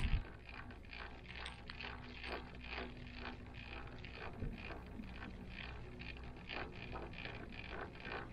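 Ride noise inside a moving gondola cable car cabin: a steady low hum with continual light clicking and rattling, and a knock right at the start.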